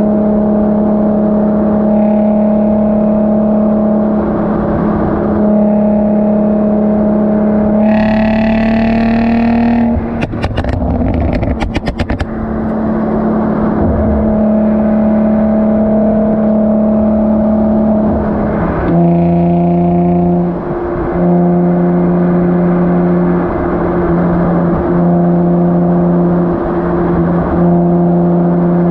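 Infiniti G35's V6 heard close at the rear bumper through a Motordyne Shockwave exhaust while driving: a steady cruising drone, a rev rising for about two seconds, then a rapid string of crackles and pops on lift-off from the tune's pops-and-bangs feature. The drone then settles back to steady, dropping to a lower pitch about two-thirds of the way through.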